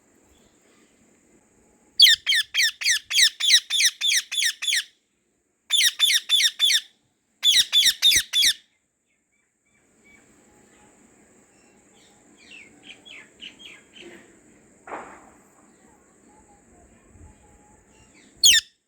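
Indian ringneck parakeet calling in three rapid bursts of high-pitched, falling notes, about five calls a second. Fainter calls follow, and one loud call comes near the end.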